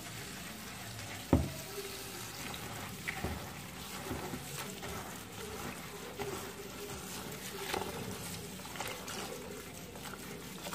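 Kitchen tap running into a plastic bowl of dried hibiscus leaves in a stainless steel sink, with a hand swishing the leaves through the water to rinse them. A sharp knock sounds about a second in.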